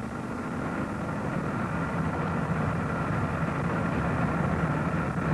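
1971 Oldsmobile Delta 88 with its 455 cubic-inch V8 driving along the road: a steady engine note and tyre and road noise, growing louder through the clip.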